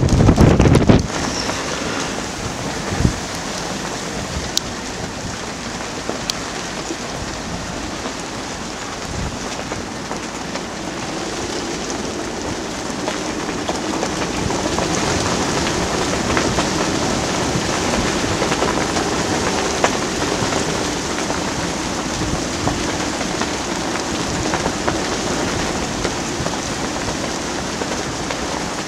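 Squall rain and wind: a steady hiss of rain with many small pattering ticks. In the first second wind buffets the microphone with a heavy low rumble.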